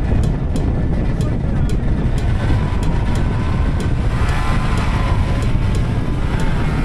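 Snowmobile engines running with a steady low rumble, close to the microphone. A faint sharp tick repeats about twice a second over it.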